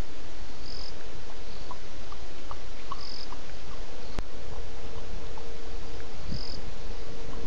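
Night chorus of insects and frogs at a waterhole, over a constant hiss and a steady hum. A short high chirp repeats every two to three seconds among fainter scattered pips, and a single sharp click comes about four seconds in.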